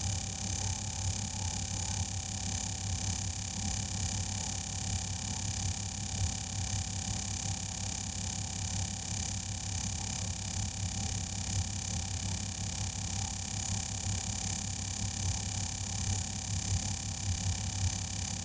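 Air compressor running steadily, a continuous hum with a low pulsing drone, while a repaired tire is set to pressure.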